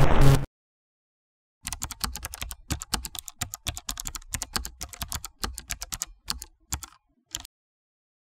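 A short electronic glitch sound that cuts off about half a second in, then a typing sound effect: rapid, irregular key clicks for about six seconds, stopping shortly before the end.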